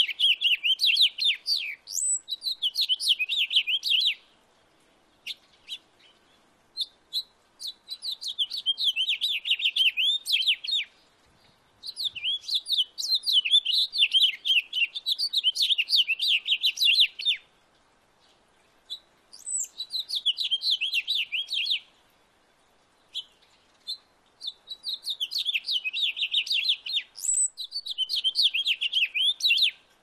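Male house finch singing: about five long, rapid warbling phrases of jumbled notes, each lasting a few seconds, separated by short pauses with a few single chirps between.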